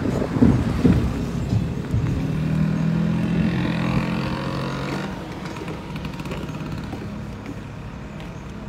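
A passing engine: a steady motor hum swells for a few seconds and fades out about five seconds in, after some uneven low rumbling in the first two seconds.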